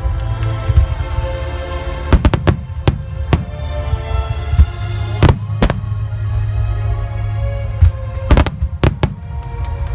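Aerial fireworks shells bursting in sharp bangs, about ten in all, coming in quick clusters, over music played through loudspeakers.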